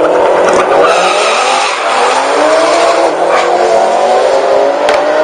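Car engines at full throttle accelerating down a drag strip, the pitch climbing, dropping at each gear change and climbing again, about twice. A sharp click sounds near the end.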